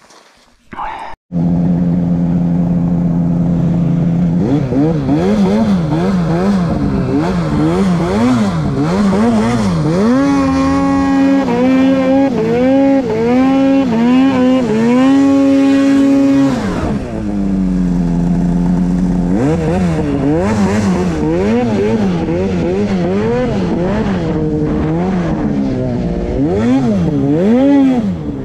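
Two-stroke mountain snowmobile engine, heard from the rider's seat, starting after about a second of near silence. It runs steadily, then is revved up and down again and again as the sled is ridden through deep snow, is held high for several seconds in the middle, drops back low, and then rises and falls once more.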